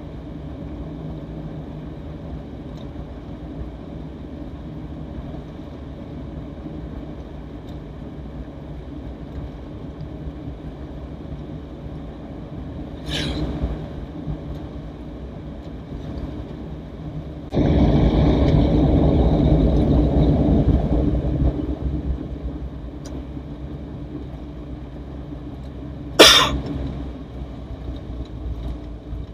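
1980 Toyota Corolla DX running along a road, its engine and road noise heard from inside the cabin. Past the middle comes a much louder rushing stretch lasting about four seconds, and there are two sharp knocks, the louder one near the end.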